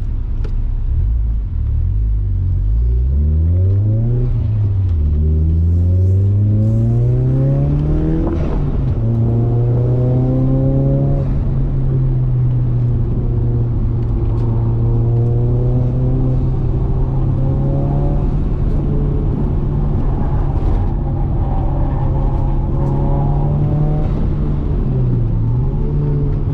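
Ford Laser TX3's turbocharged four-cylinder engine accelerating hard, its pitch climbing through a gear change about four seconds in to a second shift about eight seconds in. It then holds a nearly steady engine speed, with a brief dip and recovery near the end.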